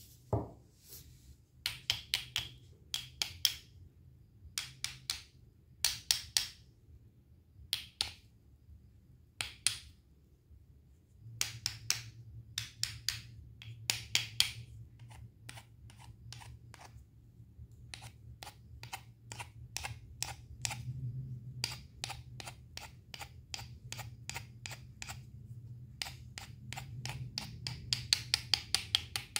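Knife chopping fruit or vegetables on a cutting board: short runs of quick, crisp chops with pauses between, coming almost without a break in the second half.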